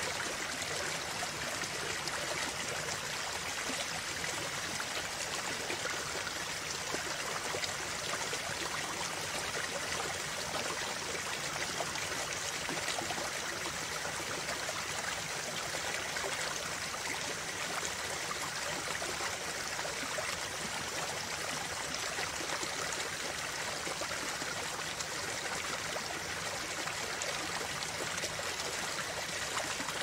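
A small stream of water running and splashing over rocks: a steady, even rush without breaks.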